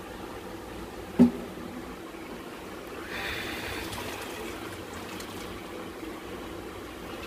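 Parboiled basmati rice being lifted from boiling water with a metal strainer and tipped into a large aluminium cooking pot: one sharp metal knock about a second in, then water trickling and dripping from the rice, over a steady hum.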